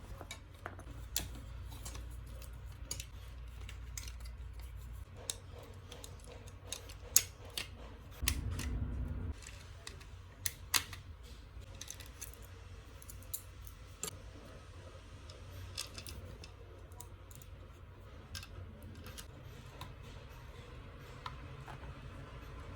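Faint, scattered clicks and light handling noise over a low hum, with a brief low rumble about eight seconds in.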